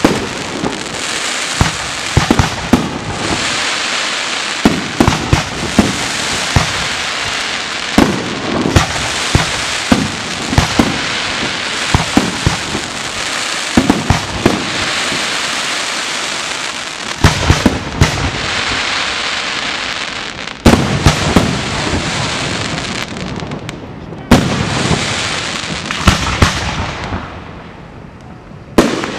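Professional fireworks display: aerial shells bursting in frequent sharp bangs over continuous crackling from the stars. One of the loudest bangs comes late on, then the crackle dies away shortly before the end, with a few bangs starting up again.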